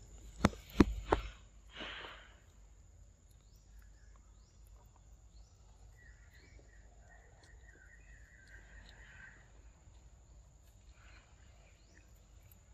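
Quiet forest ambience with a steady high-pitched hum and faint chirping in the middle, broken by three sharp clicks and a short rustle in the first two seconds.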